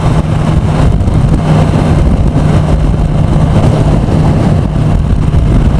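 Kawasaki ZX-10R's inline-four engine cruising at a steady 5,000 rpm at freeway speed, a constant hum under loud wind rush on the microphone.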